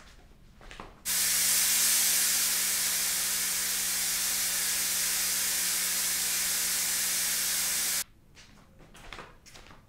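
Fog machine firing: a loud hiss of fog jetting out over a steady buzz from its pump. It starts abruptly about a second in and cuts off just as suddenly about seven seconds later.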